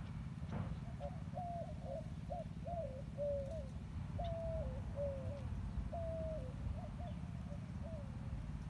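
A bird calling in a run of about a dozen short, low notes, several dropping in pitch at the end, over a steady low rumble.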